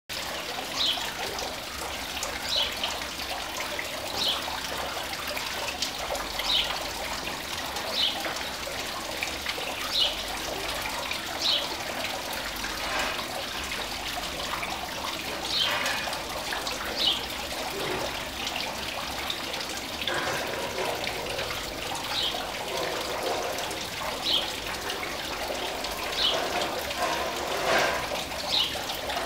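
Steady trickling water, with short high chirps recurring every second or two.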